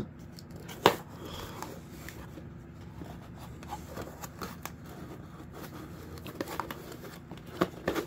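Scissors cutting the packing tape on a cardboard shipping box, with a sharp click about a second in, then cardboard flaps rustling and scraping as the box is opened by hand.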